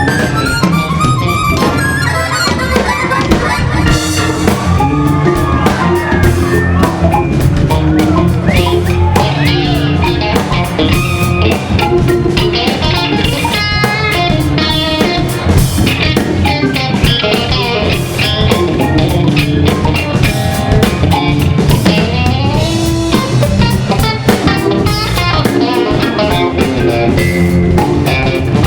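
Live soul-jazz band playing: Hammond organ taking fast runs over drum kit and guitar, at a steady groove.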